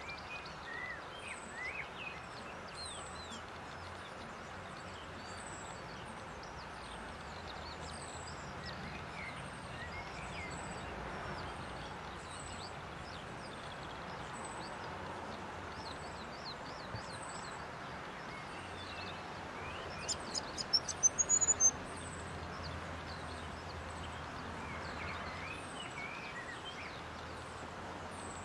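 Small birds calling with many thin, high chirps over a steady outdoor hiss, with a short high chirp repeating about once a second. About two-thirds of the way through comes a brief burst of sharp clicks, the loudest sound.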